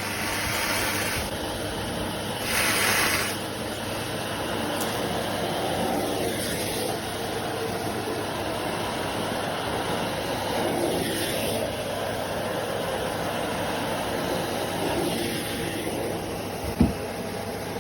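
Bagged canister vacuum cleaner running steadily, its suction hiss swelling briefly a few seconds in, with a single sharp knock near the end.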